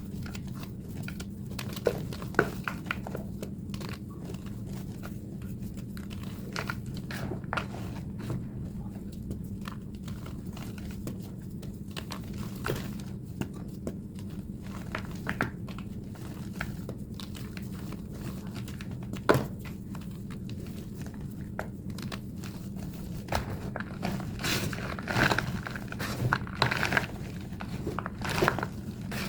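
Thick block of plain white gym chalk being crushed by hand, sped up: scattered crunches and crumbling cracks that come thicker and louder in the last few seconds.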